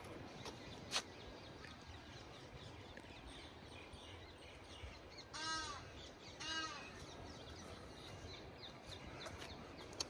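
A bird calls twice, about a second apart, midway through, each call short with a rising-then-falling pitch, over faint chirping of small birds and low outdoor background noise. A single sharp click comes about a second in.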